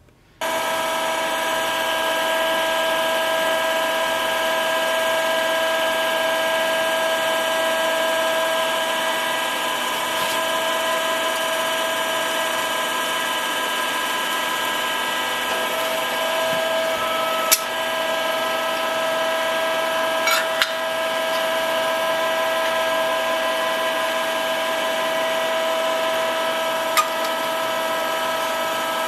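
Electric motor and hydraulic pump of a forging press running steadily, a constant whining hum that switches on abruptly, with a few short sharp metallic clicks as steel is handled at the dies.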